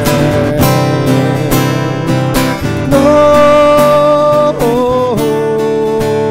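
Acoustic guitar strummed in a steady rhythm, about two strokes a second, with a man's voice holding long sung notes over it: one note comes in about three seconds in, slides lower near five seconds and is held to the end.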